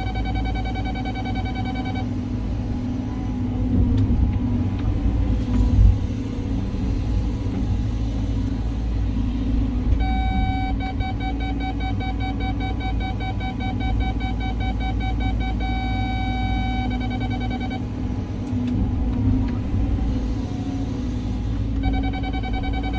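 Caterpillar 323 excavator's diesel engine running with a steady low rumble, with a sharp knock about six seconds in. A rapidly pulsing electronic beep sounds for the first two seconds, again from about ten to eighteen seconds in, and returns near the end.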